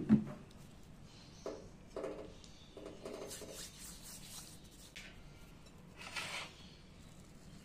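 Oiled hands rubbing and pressing crumbly semolina dough in a glass bowl, with a sharp knock at the start and a few soft knocks and rubs after it. Near the end a plastic spoon scrapes through the dough.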